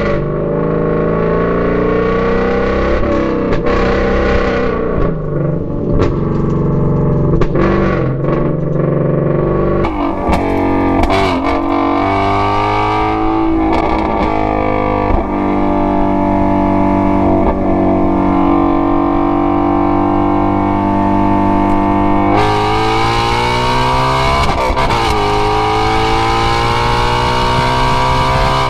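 Shelby GT350's 5.2-litre flat-plane-crank V8 exhaust under way, its pitch rising and falling with the revs several times and holding steady for a long stretch in the middle.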